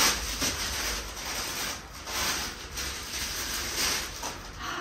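Packaging rustling and crinkling in irregular bursts as a gift parcel is unwrapped by hand.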